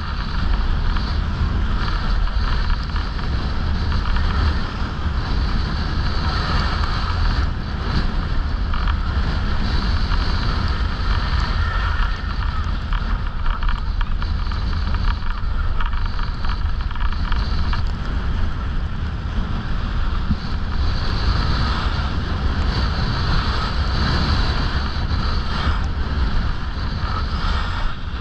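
Wind buffeting the microphone of a body-worn camera on a moving skier, a steady low rumble, over the hiss of skis sliding on packed snow.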